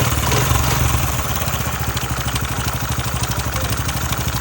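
Engine idling with a fast, even clatter, the timing-chain noise the engine is being checked for.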